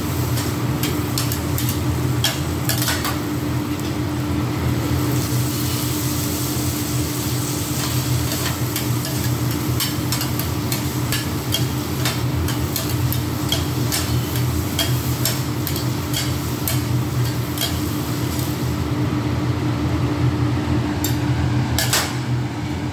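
Two metal spatulas clicking and scraping on a steel flat-top griddle as onions and green peppers are stir-fried, the food sizzling under them. A steady low hum runs underneath.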